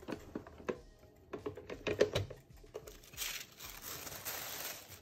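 A plastic waffle maker handled by hand: a scatter of knocks and clicks as its lid is lifted open, the loudest about two seconds in. In the last two seconds, packaging rustles and crinkles steadily.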